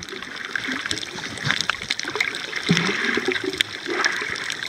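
Water sloshing and gurgling around a camera held underwater, with many short, sharp clicks and crackles scattered through it.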